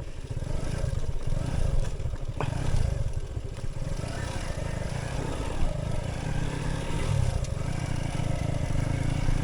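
A vehicle's engine running steadily while driving over a dirt road, with a heavy low rumble.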